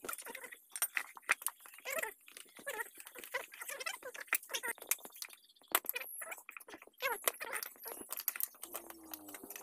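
A motorcycle rear tyre being levered off its wheel rim by hand: irregular metal clicks and scrapes of the tools on the rim, with rubber squeaking and crunching as the bead is pried over.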